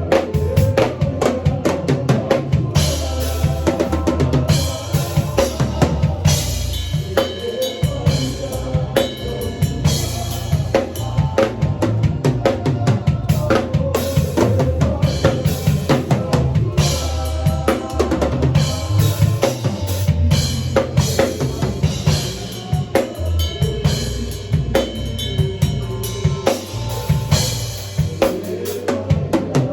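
A drum kit played continuously in a busy groove of dense, rapid strokes, with sustained pitched notes from other instruments underneath.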